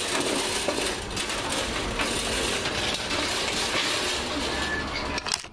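White sheet-metal live-catch cat trap rattling and clattering as it is handled, a dense, irregular jumble of metallic clicks.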